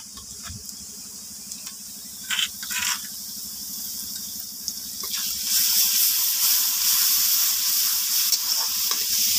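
Sliced onions and green chillies frying in mustard oil in a metal wok, a steady sizzle with garlic paste just added. A few short scrapes come two to three seconds in, and about five seconds in the sizzle grows clearly louder as a spatula stirs the paste through the hot oil.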